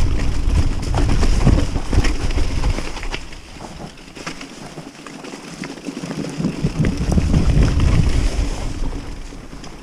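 Wind rumble on the microphone and the noise of a Kona Process 153 mountain bike riding fast down a rocky dirt trail: tyres on dirt and stones, with small knocks and rattles from the bike. The rumble eases for a couple of seconds around the middle, then builds again before fading near the end.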